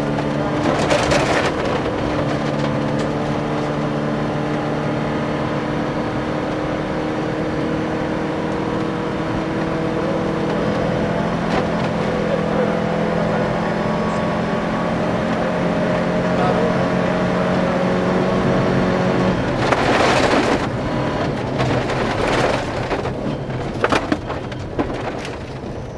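Volvo 240 rally car's engine heard from inside the cabin, held at a steady high pitch under load on a gravel straight, with a constant rush of gravel and road noise. About twenty seconds in, the engine note breaks off and a loud burst of gravel noise lasting about a second is followed by irregular knocks and clatter.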